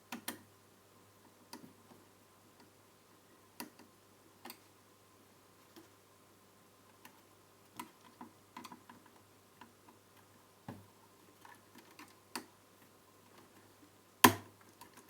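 Scattered light clicks and taps of a circuit board and TV chassis parts being handled and fitted, with one sharp, louder knock near the end as the board seats into place.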